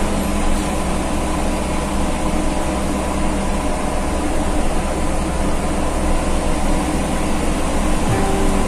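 Mitsubishi-engined bus running on the road, a steady engine hum mixed with road noise, heard from inside the cabin.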